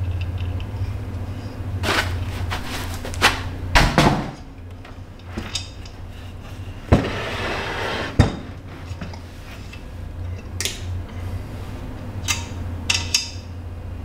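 Aluminium-extrusion frame of a small 3020 desktop CNC router being handled, lifted out of its foam packing and set down on a workbench: scattered knocks and clunks, the loudest a few seconds in and twice near the middle, with a rustling stretch between them, over a steady low hum.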